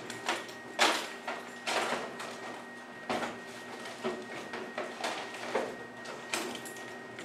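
Rummaging through a toolbox: tools and parts clattering and sliding in about a dozen irregular short bursts, over a faint steady high tone.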